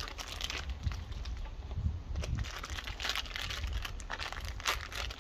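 Plastic packaging crinkling and tearing, with scattered short rustles and clicks, as a new belt tensioner pulley is unpacked from its box and bag.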